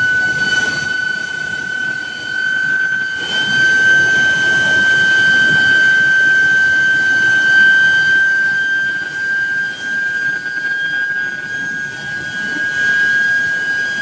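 Steel billet induction heating line in operation: the induction coils give off a steady high-pitched whine that creeps slightly up in pitch, over the constant noise of the billet-feeding roller drives and plant machinery.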